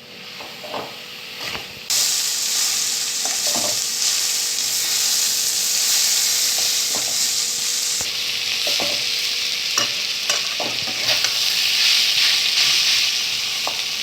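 Shredded ash gourd frying and sizzling in hot mustard oil in a kadai, stirred with a spatula that scrapes and knocks against the pan. The sizzle comes in loud about two seconds in.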